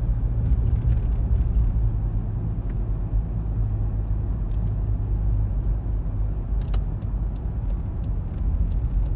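Steady low rumble of a car on the road, heard from inside the cabin, with a few faint ticks.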